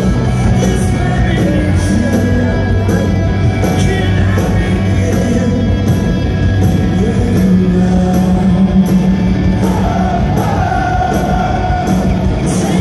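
Alternative rock band playing live and loud: electric guitars, bass and drums with regular cymbal hits, and a singer's voice over the band in the later seconds.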